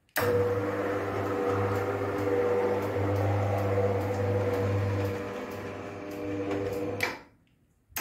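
Tubular motor of a GDO Roll 55 roller garage door running as it drives the aluminium slats on a test run. It gives a steady electric hum with a low drone and a few steady higher tones, starts suddenly and cuts off about seven seconds in.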